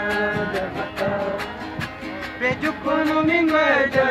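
A group of voices chanting a Guarani song, the sung line gliding up and down, over a steady, fast percussive beat.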